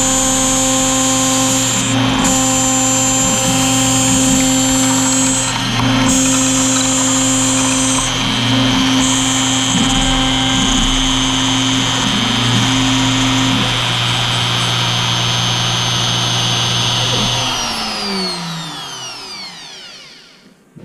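CNC router spindle whining steadily as its end mill cuts Delrin. About seventeen seconds in the spindle shuts off and spins down, its whine falling in pitch and fading until it stops near the end.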